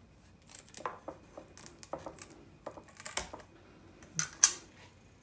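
Kitchen scissors snipping the fins off whole pomfret fish, a string of short crisp snips and clicks, with one louder sharp click about four seconds in.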